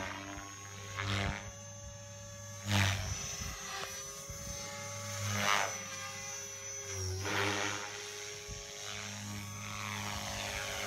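Align T-Rex 450L Dominator electric RC helicopter flying 3D: a steady high whine and buzz from its brushless motor and rotor, held at a constant head speed by the governor, with several swelling whooshes from the rotor blades as it manoeuvres.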